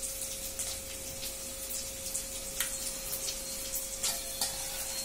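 A steel ladle scooping watery cooked toor dal from a pressure cooker and pouring it into a small steel pot, with scattered light clicks and splashes over a steady faint hum.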